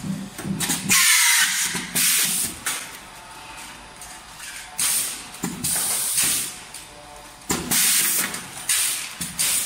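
Tube-film form-fill-seal pouch packing machine running, its pneumatic cylinders letting out sharp hisses of air in pairs about every three seconds, once per packing cycle.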